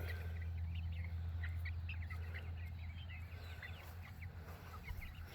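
Backyard hens making soft, short chirping calls, many in the first few seconds and a few more later, over a steady low hum.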